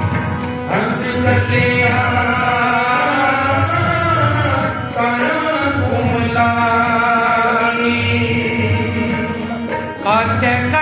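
Sikh kirtan instrumental passage: a sustained harmonium melody over a steady tabla beat.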